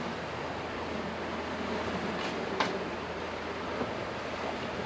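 Steady rushing wind and water noise aboard a sailing catamaran underway, with a sharp click about two and a half seconds in.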